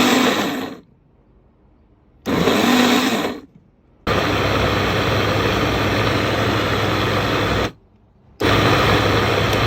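Electric blender grinding a thick mix of stir-fried dried shrimp and chilies into chili paste. It runs in four bursts with sudden short silences between them, the longest run about three and a half seconds.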